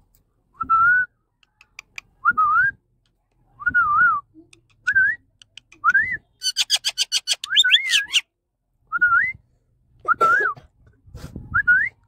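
Pet ring-necked parakeet whistling short rising and wavering notes, about one every second and a half, with a harsh rapid chatter about halfway through.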